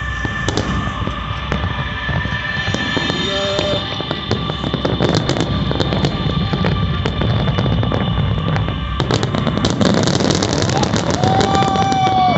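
Fireworks bursting and crackling, the crackle growing dense near the end, with music playing in the background.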